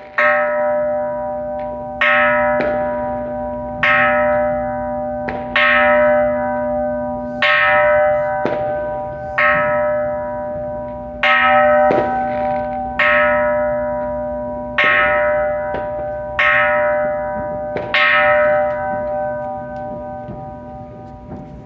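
Small hanging Buddhist temple bell struck from below with a wooden mallet on a pole, about every two seconds, eleven strokes in all. Each stroke rings on with a steady low hum beneath and a few lighter knocks come between some strokes, in the series of 108 strokes rung to welcome the new year. After the last stroke, near the end, the bell rings out and fades.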